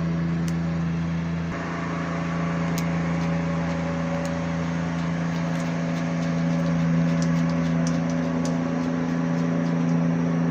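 Steady low mechanical hum with a few faint, light clicks.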